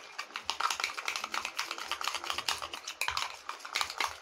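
Metal spoon stirring an egg-yolk and instant-coffee mixture in a small bowl, with rapid, steady clicking and scraping of the spoon against the bowl.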